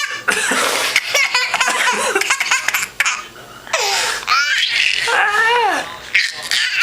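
Baby laughing hard in repeated bursts, breaking into high, sliding squeals of laughter from about four seconds in.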